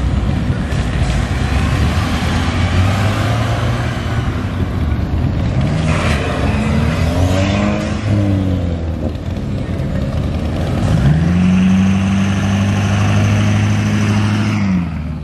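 Cars accelerating past one after another. Engine notes rise and fall around the middle as a hatchback revs by. From about 11 s a lifted Ford Super Duty pickup's engine drones steadily as it passes, and the sound cuts off at the end.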